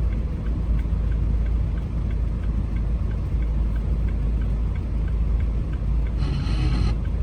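Steady low rumble of a car on the move, with faint regular ticking over it.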